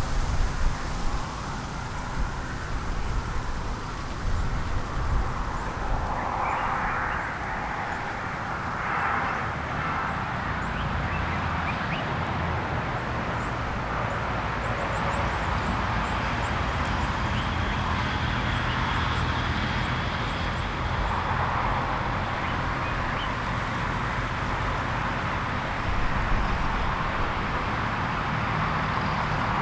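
Steady outdoor background rumble with faint, short, high-pitched bird chirps now and then.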